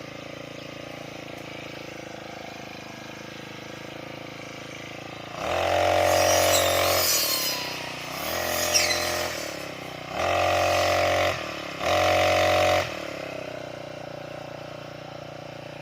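Brush cutter engine idling, then throttled up four times, each for one to two seconds, as it cuts grass. It drops back to idle between the bursts and after the last one.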